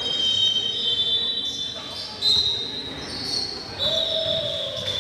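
Basketball game sounds: a ball bouncing on the court floor with several high-pitched sneaker squeaks.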